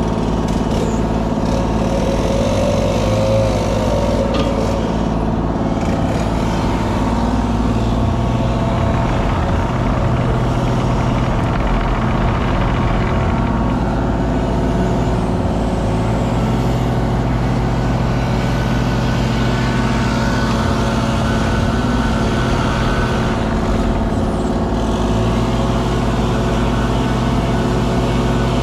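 Diesel engine of a Kubota KX033 mini excavator running steadily, its pitch shifting slightly a few times.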